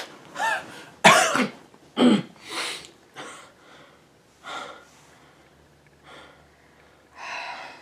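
A person's short, irregular breathy vocal outbursts, like coughs or sobbing gasps, about eight of them. The loudest comes about a second in, and they grow weaker and further apart after that.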